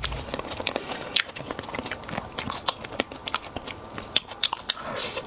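A person biting and chewing food close to the microphone: irregular crisp crunches and wet clicks.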